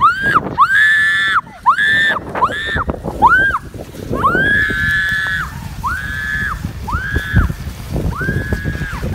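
A woman screaming again and again on the way down a long dry toboggan slide: a string of about nine high-pitched screams, a couple of them drawn out for about a second, over a steady rushing noise.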